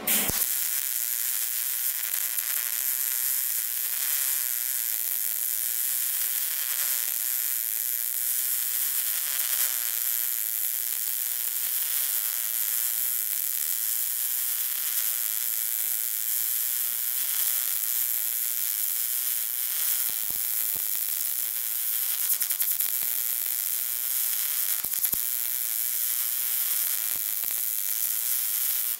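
MIG welder arc sizzling steadily as a bead is run along the joint between steel square tubing and a steel plate. It starts abruptly and stops abruptly after nearly half a minute of continuous welding.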